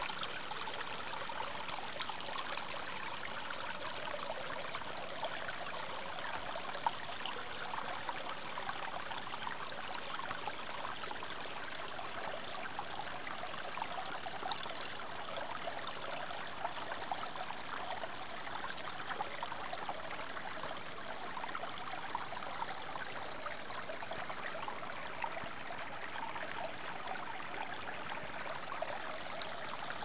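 Small mountain brook of snowmelt water running steadily over rocks, an even babbling rush with no break.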